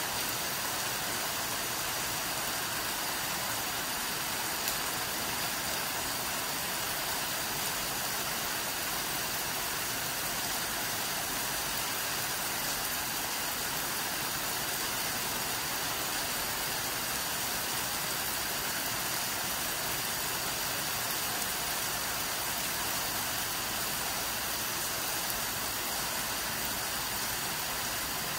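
Steady rain falling on tropical foliage at night, an even hiss that holds without a break.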